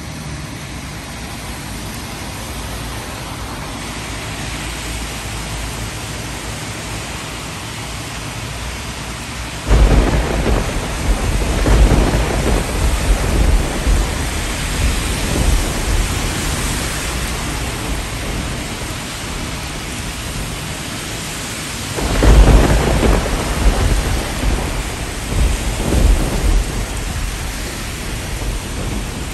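Heavy rain falling steadily during a thunderstorm, with two loud claps of thunder, one about ten seconds in and another about twenty-two seconds in, each rumbling on for several seconds.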